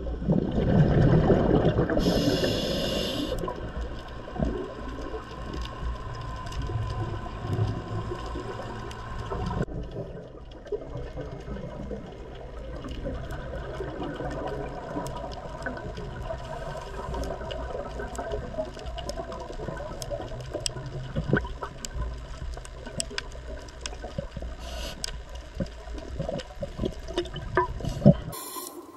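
Underwater sound picked up by a diver's camera: a loud rush of water and bubbles in the first few seconds, then a steady low rumble with many scattered short clicks. The sound cuts off abruptly near the end.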